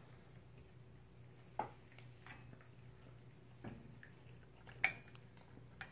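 A few short light clicks and taps, spaced a second or more apart and the loudest about five seconds in, over quiet room tone.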